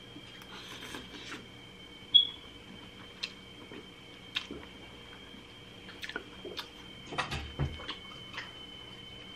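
A person eating noodles with a fork: chewing, with scattered sharp clicks and taps of the fork, over a faint steady high-pitched whine.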